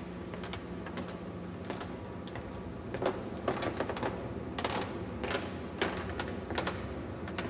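Irregular sharp clicks and taps, sparse at first and coming several a second in the second half, over a steady low hum of machinery.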